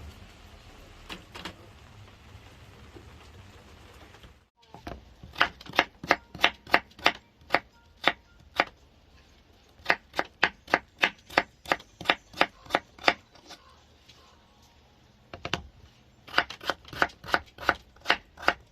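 Knife chopping vegetables on a cutting board: sharp, regular strokes at about two to three a second, pausing briefly and then starting again near the end. Before the chopping, about four seconds of faint steady hiss.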